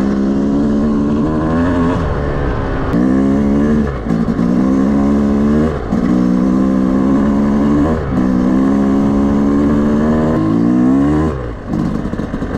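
Yamaha YZ250 two-stroke dirt bike engine being ridden during break-in. Its revs climb and drop back about every two seconds, five times over, as it works up through the gears, then the throttle closes near the end.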